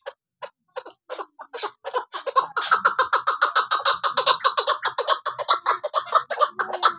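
Chukar partridge calling: a series of short chuck notes, spaced out at first, then speeding up about two seconds in into a fast, steady rattling run.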